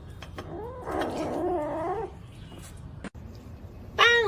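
A pet's drawn-out, wavering whining call lasting about a second and a half. Near the end a cat lets out a loud meow that falls in pitch.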